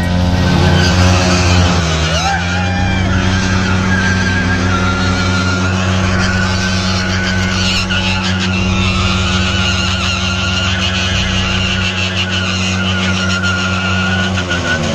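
Motorcycle engines running together, one held at high revs while its rear tyre spins in place in a burnout, with a steady high tyre squeal. One engine revs up and drops back about two seconds in.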